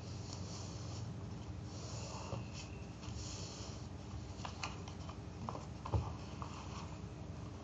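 A sheet of paper being handled and folded by hand: a few brief rustling swishes as it slides and creases, then a run of light taps and clicks, with one louder thump about six seconds in, over a steady low background hum.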